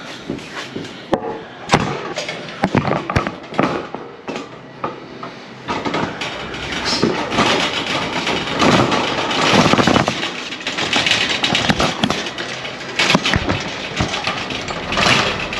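Handling noise from a handheld camera: rustling and knocks against a padded winter jacket, with sharp clicks at first and denser, louder rustling from about six seconds in.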